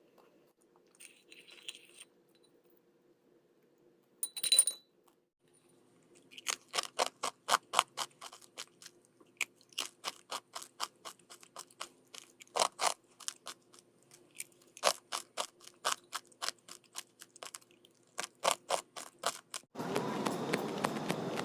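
Someone chewing crunchy food: a long run of crisp crunches, several a second, starting a few seconds in after one louder crunch. A loud, even rushing sound comes in near the end.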